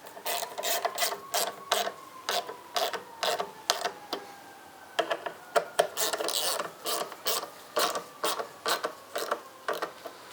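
Hand ratchet clicking in repeated short strokes, about two a second with a busier stretch around the middle, as the license plate frame's mounting bolts are tightened.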